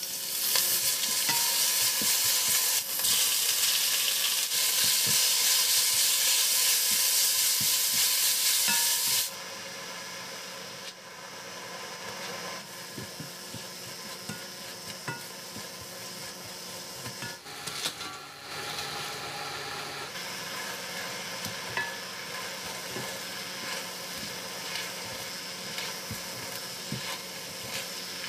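Food sizzling loudly in a hot frying pan, dropping sharply to a quieter steady sizzle about nine seconds in. After that, light clicks of a utensil stirring against the pan.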